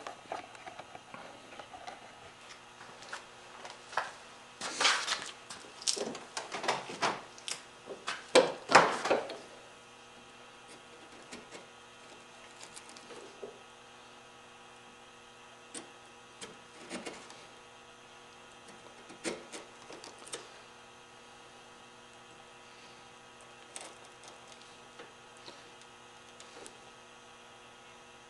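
Chisel paring and scraping curly maple, cleaning a dovetail joint out to the scribe marks: a run of short scratchy strokes in the first ten seconds, then only occasional light clicks. A steady electrical hum runs underneath.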